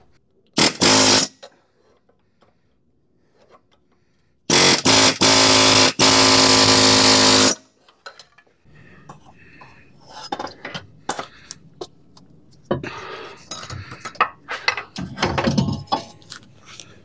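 A buzzing power tool runs twice, briefly and then for about three seconds, followed by scattered metal clinks and knocks as the CV axle is pried out of the transmission.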